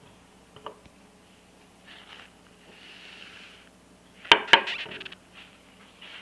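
A glass bottle and a drinking glass being handled and set down on a hard tabletop: a few light clinks, a soft sliding rustle, then two sharp knocks close together about four seconds in with a brief clatter after.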